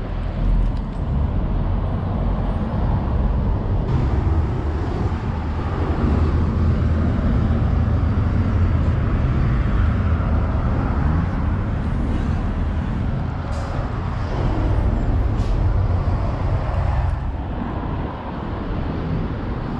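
Road traffic on a city street: a steady low rumble of passing vehicles, with a few short ticks partway through.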